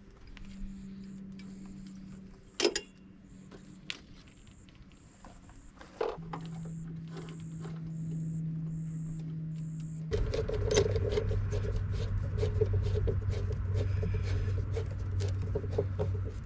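Hand work on solar wiring: a few sharp clicks and snips, then from about ten seconds in a busier run of small clicks and rustling, all over a steady low hum.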